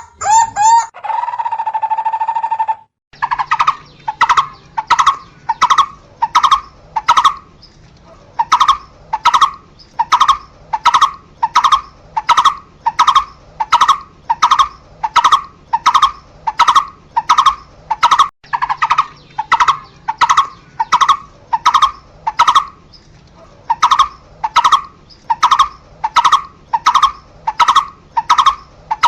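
Barbet calling: one short note repeated over and over, about two a second, with a few brief pauses. It is preceded by a quick run of notes and a steady held note lasting about two seconds, which cuts off about three seconds in.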